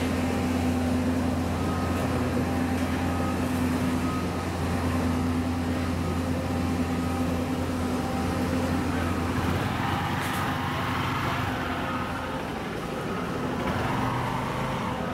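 A motor running steadily with a low hum that drops away about two-thirds of the way through, over general street noise.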